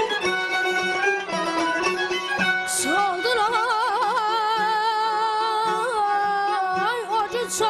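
Music: an instrumental melody plays, then about three seconds in a singer's voice enters with a rising slide and sings a heavily ornamented line full of rapid trills, holding one long note near the end.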